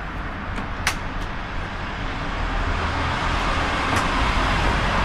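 Road traffic noise from a motor vehicle passing close by, a steady rumble and hiss that grows louder toward the end, with one sharp click about a second in.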